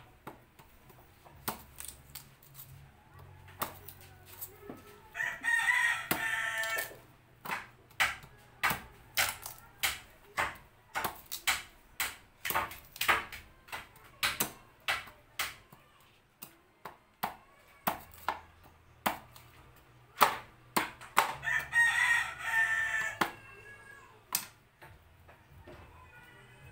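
A knife strikes a cutting board over and over, about two sharp knocks a second, as cassava root is chopped and peeled. A rooster crows twice, once about five seconds in and again near the end.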